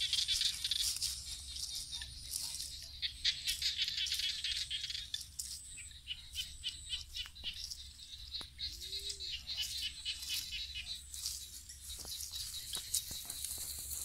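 Rustling and crunching of dry leaves and grass underfoot and among plants: a dense run of small crackles.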